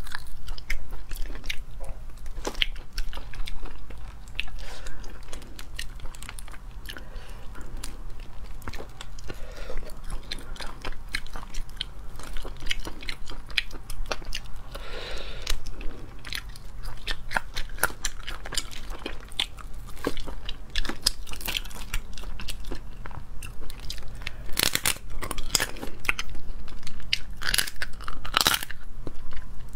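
A person eating whole crayfish close to the microphone: shells cracking and crunching between the fingers and teeth, with biting and chewing in quick irregular clicks that grow busier and louder near the end, over a steady low hum.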